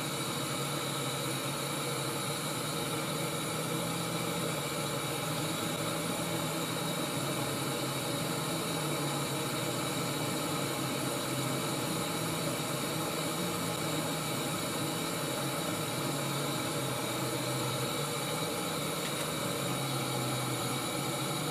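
Backpacking canister gas stove burner running steadily, an even hiss, heating a pot of water that is still well short of the boil.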